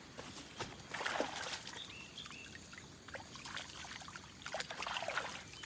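Water splashing and trickling in irregular bursts as the muddy roots of a freshly dug plant are rinsed clean, strongest about a second in and again near the end.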